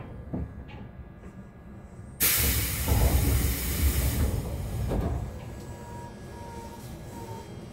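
Air-operated passenger doors of an Odakyu 1000 series train opening at a station stop: a sudden loud hiss of released air about two seconds in, with low thuds as the door panels slide open, then the hiss fades.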